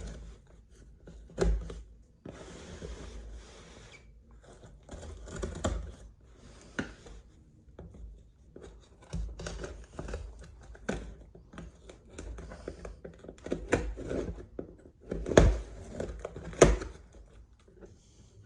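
A mailed package being opened by hand: tearing, rustling and crinkling of wrapping, with scattered clicks and knocks as it is handled. Two sharp thumps near the end are the loudest sounds.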